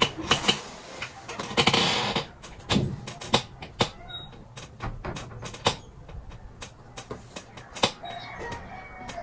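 Scissors snipping through hair, giving a run of sharp, irregular clicks.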